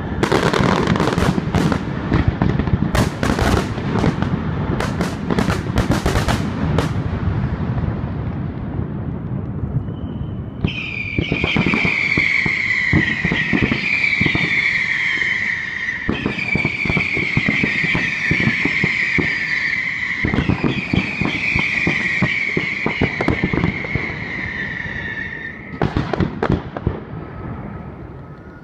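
Fireworks display: dense bangs and crackling bursts for about ten seconds, then a loud shrill whistle that falls slightly in pitch and starts over four times across some fifteen seconds, with pops beneath it. Bangs return near the end.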